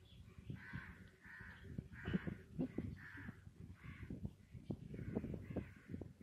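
A series of about ten short, harsh caw-like calls, roughly two a second, over a rapid crackle of low knocks and taps.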